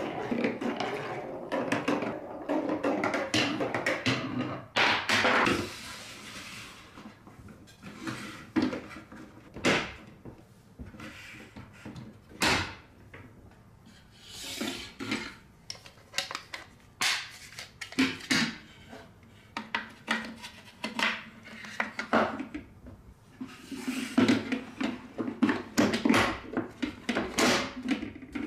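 A ball rolls down a wavy plastic marble-run track and a wooden rail ramp, with a loud clatter about five seconds in as the run ends. After that come separate sharp clicks and knocks of plastic and wooden marble-run track pieces being handled and fitted together, busiest near the end.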